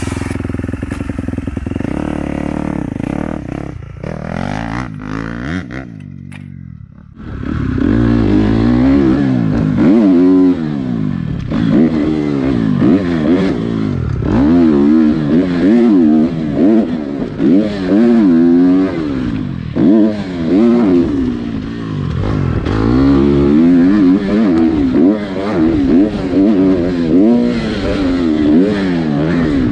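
Motocross bike engine heard from a camera mounted on the rider. It runs steadily at first, then from about seven seconds in revs up and down over and over as the bike is ridden round the track.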